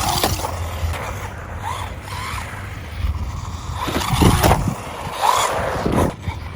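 Electric 1/10 scale RC car driving in short throttle bursts, its motor whining briefly upward a few times over a steady low rumble, with several louder surges.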